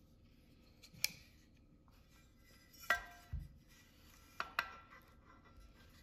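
AR-9 upper and lower receivers knocking and clicking together as they are fitted by hand for pinning: a few sharp metal clicks, one about three seconds in ringing briefly, and a soft thump.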